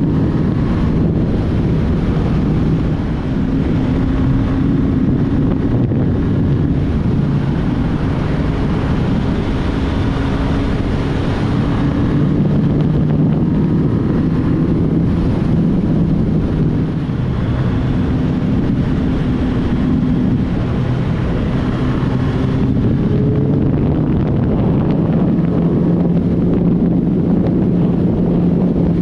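Heavy wind rushing over the microphone at riding speed on a stock Suzuki Hayabusa, with the bike's quiet inline-four engine running underneath as a low hum whose pitch shifts up and down a few times.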